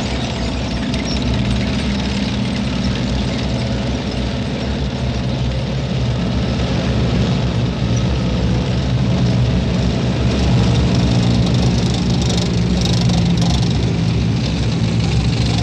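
Column of Chieftain tanks driving past, their engines running with a steady low drone, with some clanking about three-quarters of the way through.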